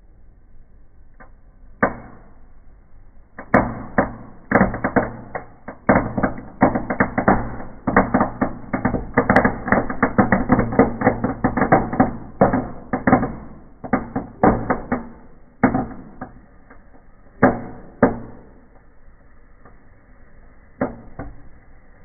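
A packed batch of small firecrackers exploding inside a burning fireplace. A couple of single bangs come first, then a dense, rapid string of bangs for about ten seconds, then a few scattered bangs near the end.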